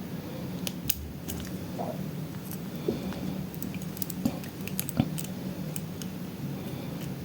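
Lock pick and tension wrench working the pins of a pin tumbler lock: irregular small metallic clicks and scrapes, a few a second, over a steady low hum.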